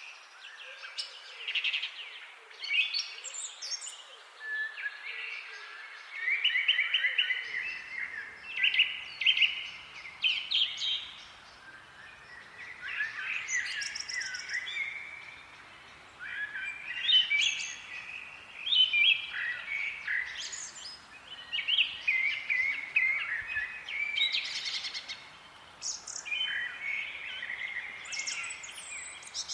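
Several songbirds chirping and singing at once in a continuous chorus of short, overlapping whistled phrases and rapid trills, over a faint steady background hiss.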